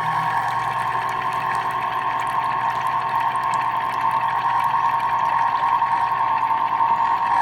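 Electric citrus press juicer's motor running steadily, spinning its reamer as fruit is pressed. It winds down and stops at the very end, its pitch sliding down.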